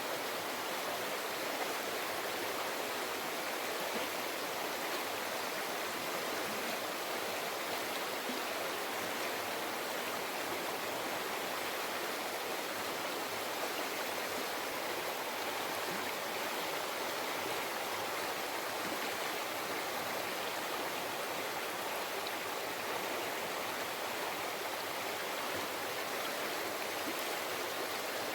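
Forest river flowing over rocks: a steady rush and babble of water with no change in level.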